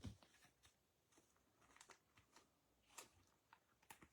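Near silence with a few faint, brief clicks and rustles of trading cards being handled and sorted.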